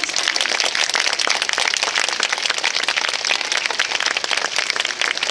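Crowd applauding: dense, steady clapping from many hands.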